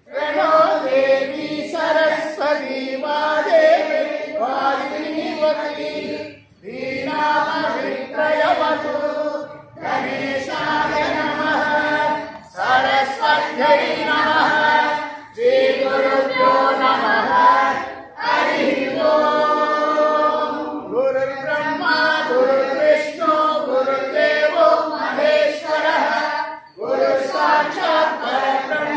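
A group of voices singing a devotional bhajan together, in sung phrases of a few seconds each with short breaks between them.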